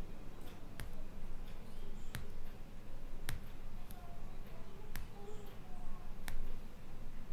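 A string of sharp clicks, one every second or so, over a low rumbling noise, with a faint voice behind them.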